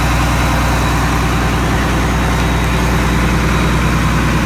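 Engine of a Global 2100TE deicing truck idling steadily, with an even low pulse and a thin high whine.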